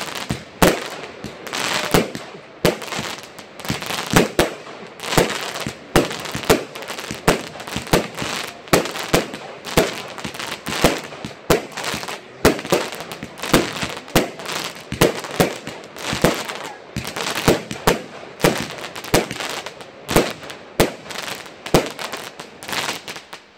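Aerial fireworks bursting overhead, one bang after another at about two a second, with a noisy haze between the bangs.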